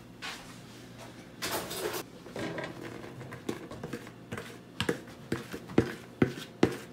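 A spoon scraping and knocking against a plastic mixing bowl as thick chocolate cake batter is emptied into a metal tube pan. There is a short scrape about a second and a half in, then a run of sharp knocks that come about twice a second near the end.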